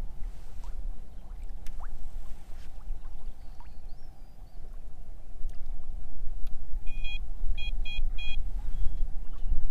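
Wind buffeting the microphone over water lapping at a floating pontoon, with a carp-style electronic bite alarm beeping four times in quick succession near the end as the line is set over its roller.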